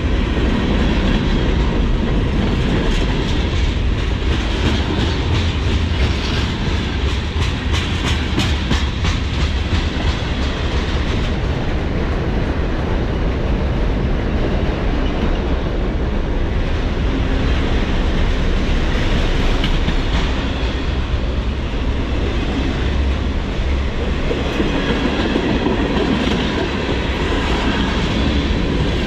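Norfolk Southern train rolling past with a steady, loud rumble of wheels on rail. About six seconds in, a stretch of rapid clickety-clack from the wheels passing over rail joints lasts several seconds.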